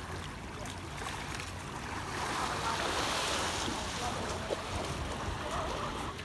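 Small waves washing onto a sandy beach, the surf noise swelling to its loudest about halfway through.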